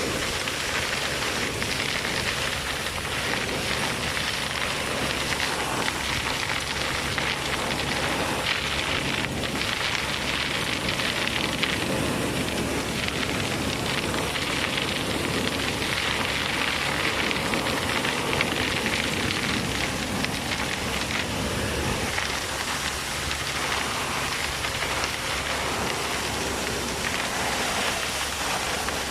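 Vacuum excavator running: a steady rushing hiss of suction air, with a faint low machine hum beneath it.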